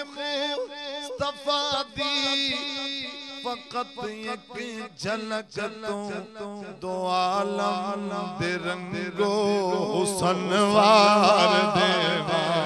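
Male voice singing a naat in a long, wavering melodic passage without clear words, over a steady low drone. The singing grows fuller and louder about halfway through.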